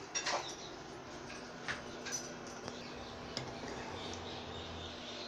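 Thick tamarind chutney boiling in a pan, with scattered soft pops and clicks over a faint steady hiss, and a faint steady hum in the second half.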